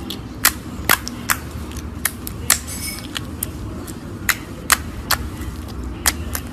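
Clear slime being squeezed and poked, giving sharp, irregular clicks and pops, about a dozen, over a steady low background rumble.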